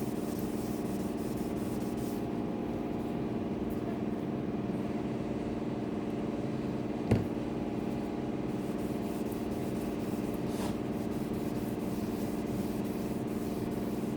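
A steady, even hum running unchanged throughout, with a single sharp click about halfway through.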